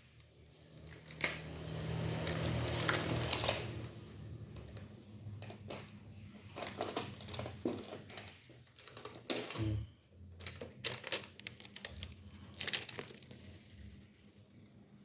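Phone packaging being handled: plastic wrapping crinkling along with irregular light clicks and taps as the box is turned over and opened.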